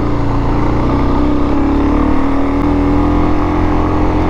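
Dual-sport dirt bike engine running at a steady cruise, its pitch nearly constant, with wind rumble on the rider's microphone.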